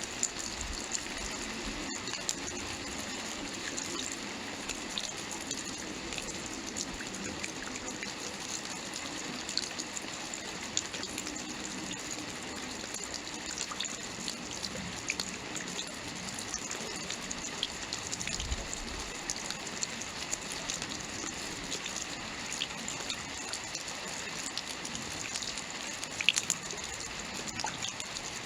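Steady rainfall: an even hiss of rain with many small, sharp drop ticks scattered through it, and a few louder drops near the end.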